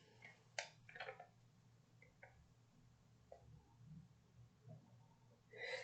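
Near silence, with a few faint short clicks and rustles of a paper note and stickers being handled.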